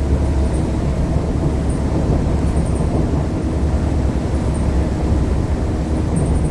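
Mercedes-Benz OC500LE CNG bus running, a steady low rumble with faint high ticking above it; the bus's fan bearing is worn.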